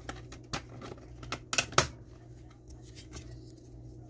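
Plastic DVD cases and discs being handled: a handful of sharp plastic clicks in the first two seconds, then light handling noise.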